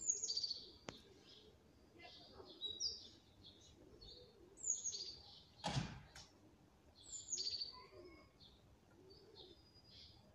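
Small birds chirping: a bright call of several quick notes falling in pitch, repeated about every two to three seconds. A single brief knock or rustle comes about six seconds in.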